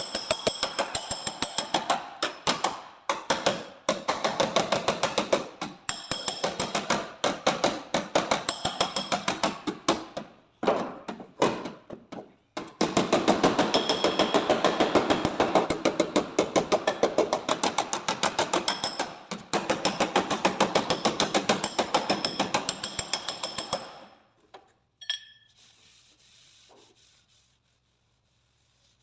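Rapid, steady hammer blows on car body sheet metal, each with a short metallic ring: panel beating to straighten a dented body panel. The hammering breaks off briefly near the middle, stops about four-fifths of the way through, and a few faint clinks follow.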